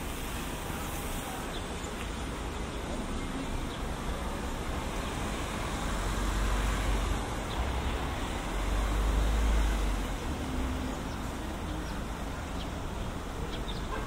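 Outdoor background noise: a steady hiss with a low rumble that swells twice, about six and nine seconds in.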